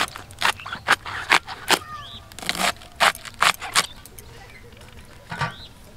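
Crisp crunches of a fresh, tightly headed cabbage being sliced on a bonti, a curved blade fixed upright on a base: about two cuts a second, stopping about four seconds in, with one more cut near the end.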